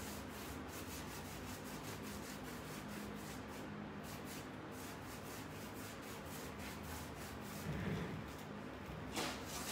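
Paintbrush scrubbing paint onto a grooved wooden cabinet door in quick back-and-forth strokes, a steady dry rubbing sound. A soft bump about eight seconds in.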